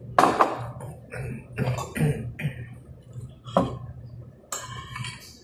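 Tableware sounds while eating: a few short, sharp knocks and clinks, the sharpest a fork against a plate about three and a half seconds in, over a low steady hum.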